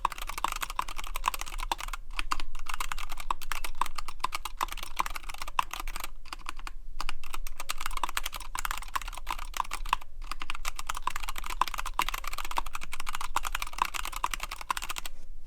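Fast, continuous typing on a NightFox mechanical keyboard with tactile Zealios V2 62g switches, WhiteFox keycaps, an integrated aluminium plate and shelf liner under the PCB. The typing breaks off briefly about six seconds in, with a few shorter breaks elsewhere, and stops just at the end.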